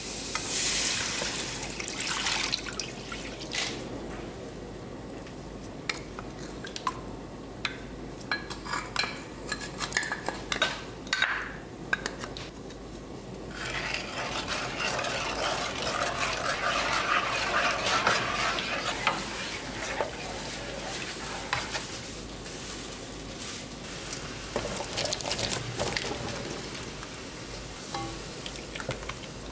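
A wooden spoon stirring, scraping and knocking against a nonstick wok as a thick tteokbokki sauce is mixed into water, with stretches of liquid hiss and sloshing in between.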